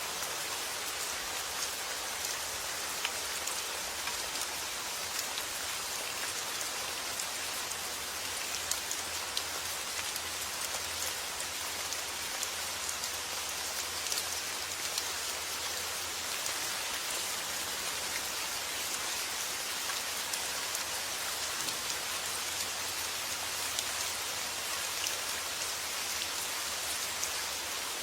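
Steady summer rain falling: an even hiss with many small, sharp drop ticks scattered through it.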